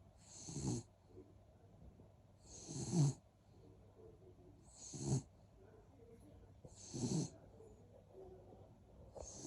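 Snoring, one long snore roughly every two seconds, each swelling and then cutting off sharply; four full snores, with a fifth starting near the end.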